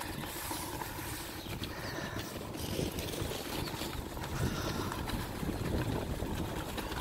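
Sled sliding fast over packed snow: a steady rushing, scraping noise of the runners, with snow spraying up and wind on the microphone.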